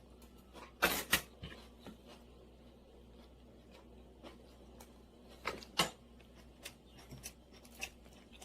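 A few light clicks and knocks over a faint steady room hum, the sharpest pair about a second in and another just before six seconds.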